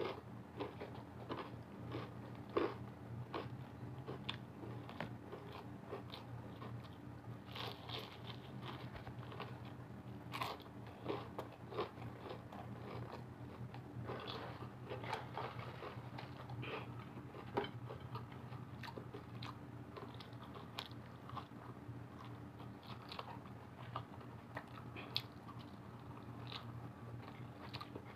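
Close-up mouth sounds of eating crispy broasted fried chicken: irregular crisp crunches from biting and chewing the breaded skin. A steady low hum runs underneath.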